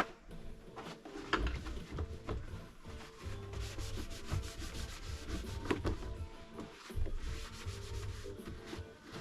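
Repeated rubbing strokes, like a composting toilet's plastic parts being scrubbed clean, over quiet background music.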